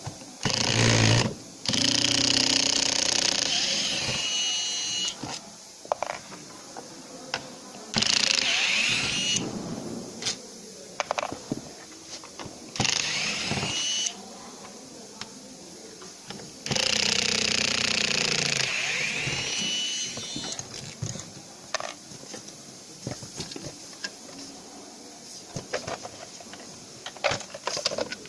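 Electric screwdriver running in about five short bursts of one to three seconds, each ending as the motor spins down, with small clicks and knocks of screws and parts being handled between the runs.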